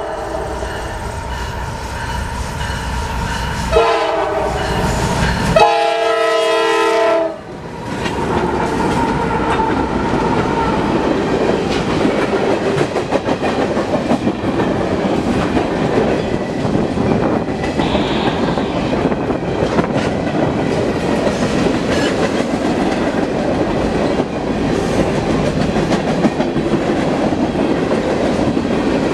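Norfolk Southern freight train passing. The lead locomotive's air horn blasts as it approaches the grade crossing: one blast ends about a second in, then two more follow and end about seven seconds in. After that a long string of freight cars rolls past, its wheels clicking over the rail joints.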